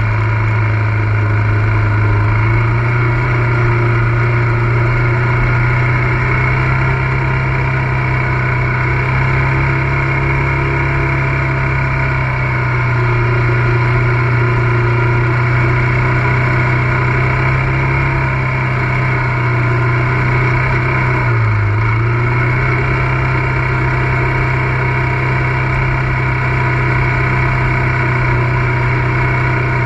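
ATV engine running steadily, its pitch wavering a little with the throttle and dipping briefly about two-thirds of the way through.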